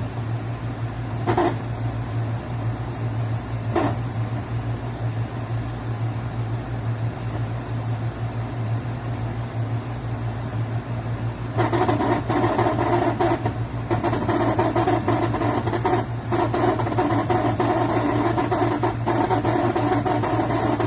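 NOMA 10000 BTU portable air conditioner running with a steady low hum, broken by an intermittent grinding noise whose cause the owner has not found. The grinding comes in two short bursts early on, then from about halfway sets in louder and keeps cutting out and starting again.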